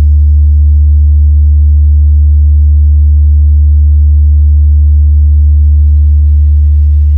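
Very loud, steady deep bass test tone: a single low sine-like hum held unbroken, the bass frequency check of a DJ sound-test track.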